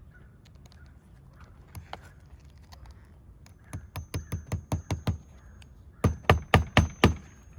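Hammer driving nails into an asphalt roof shingle: a quick run of about seven blows, a short pause, then about five harder blows.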